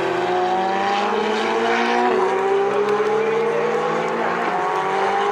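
Ferrari Challenge race cars' V8 engines accelerating past one after another, their engine notes rising in pitch, with a brief drop in pitch about two seconds in.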